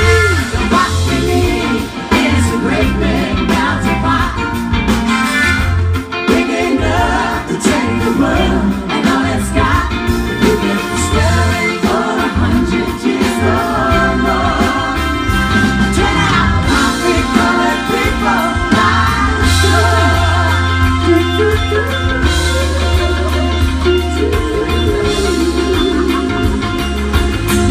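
A band playing a rock song: a singer over guitar, a bass line and drums.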